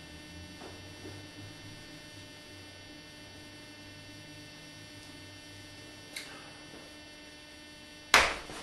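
Steady low electrical hum with a few faint clicks, then a sudden loud thump near the end.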